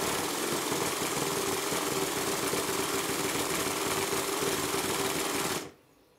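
Stuart Models triple expansion model steam engine running fast: a steady hiss of exhaust with a quick, even beat, stopping abruptly about five and a half seconds in.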